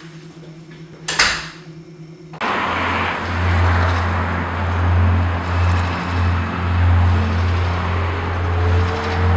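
A single sharp clack about a second in, then a car running, starting suddenly about two and a half seconds in: a steady low engine hum under road noise, with a faint rising tone near the end.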